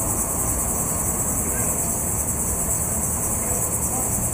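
Steady, high-pitched chorus of insects trilling with a fine even pulse, over a low rumble.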